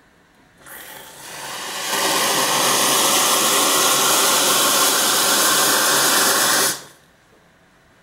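Brasilia Portofino espresso machine's steam wand opened into a glass. A loud, steady hiss builds over about a second, with a faint whistle rising slowly in pitch, then cuts off sharply as the valve is shut about a second before the end.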